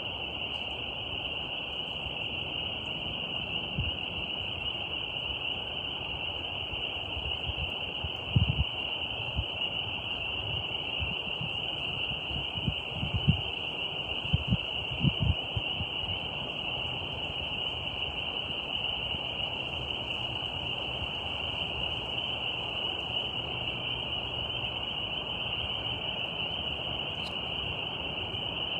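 Steady outdoor nature ambience: a constant high-pitched trilling drone over a soft background hiss, with several low thumps in the middle.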